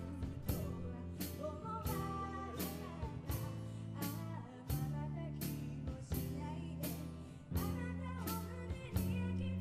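A live band playing, with a singer over a drum kit that keeps a steady beat of about two hits a second.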